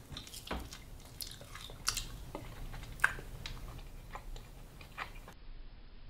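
A man chewing a mouthful of food with his mouth partly open: irregular wet smacking and clicking, the sharpest clicks about two and three seconds in, fading out about a second before the end.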